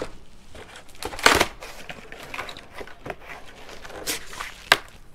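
Cardboard packing being handled, rustling and scraping in short bursts, loudest about a second in, with a few sharp knocks in between.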